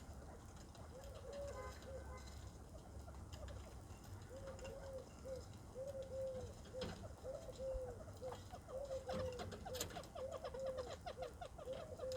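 Bobwhite quail giving soft, short, repeated low calls, sparse at first and coming faster and overlapping in the second half.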